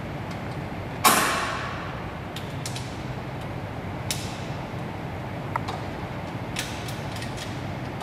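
Hinged sheet-metal protective cover over a motor and alternator shutting with a sharp metallic clang about a second in, then a few lighter clicks and knocks as the cover is latched shut.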